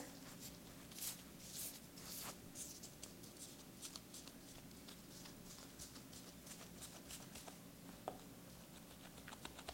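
Faint rustling and scratching of gloved hands pressing logs of crystal-sugar-coated cookie dough together on parchment paper, with a few soft scrapes in the first couple of seconds and a few more near the end.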